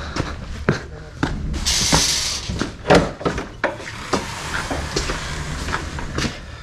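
Irregular knocks, clicks and thumps of bags and gear being handled and set down, with a short hiss about two seconds in.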